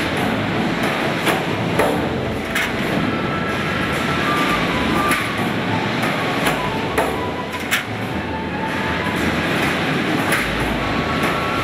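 A tandem line of SIMPAC eccentric mechanical presses running, stamping sheet-metal automotive parts. Irregular sharp metallic clanks and knocks ring out over a steady loud machine din.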